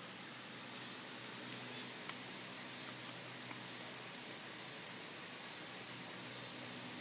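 Outdoor yard ambience: a steady hiss with a faint high chirping call that repeats about once a second, and a couple of light clicks about two seconds in.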